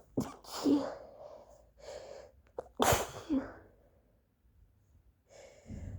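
A woman with a cold sneezes twice into a handkerchief, about two seconds apart, each sneeze preceded by a quick inhale. Near the end a drawn-in breath builds toward another sneeze.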